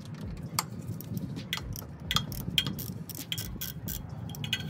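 Ratchet wrench clicking irregularly, with light metallic clinks, as the power steering belt's mounting bolts are loosened to slacken the belt.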